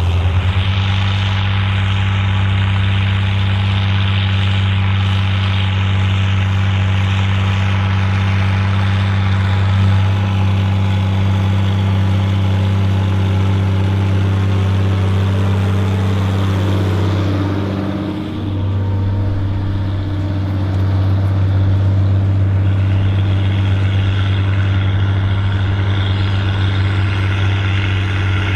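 Volvo BM 810 Turbo tractor's turbocharged diesel engine running steadily under load while pulling a six-furrow plough. About two-thirds of the way through, its note briefly drops and shifts in pitch, then it picks back up to the same steady drone.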